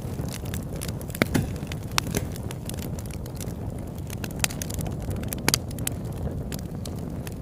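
Campfire crackling, with scattered sharp pops over a steady low rumble; the loudest pops come about a second in and again past halfway.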